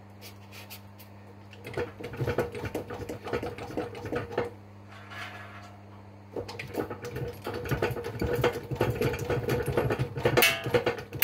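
Rapid mechanical clicking and whirring from a workshop tool in two runs, the first about three seconds long and the second about five, over a steady low hum.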